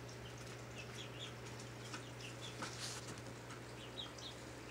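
Low, steady hum of an aquarium's hang-on-back filter, with faint short high chirps and ticks scattered throughout.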